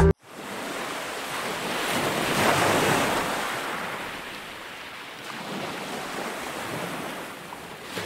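Sea waves washing onto a shore, surging to a peak about two to three seconds in and then easing back, with a smaller rise near the end.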